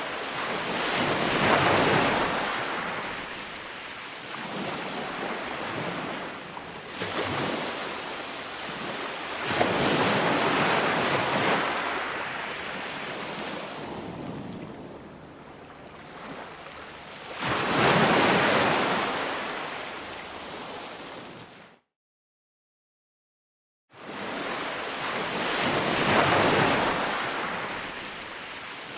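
Ocean waves breaking and washing on the shore, each surge swelling and fading over several seconds, with the loudest crashes about two, ten and eighteen seconds in. The sound cuts to dead silence for about two seconds near the three-quarter mark, then the surf resumes.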